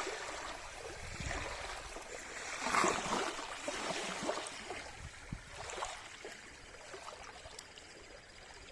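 Small waves on a reservoir lapping and splashing against shoreline rocks in an irregular rhythm, with one louder splash about three seconds in.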